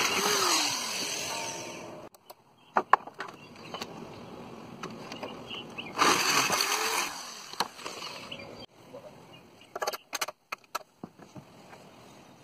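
Power drill with a twist bit boring through a steel bracket into a roof-rack cross bar. There are two bursts of drilling, one at the start and one about six seconds in, each ending as the motor winds down in pitch. A few light clicks and taps fall between them and near the end.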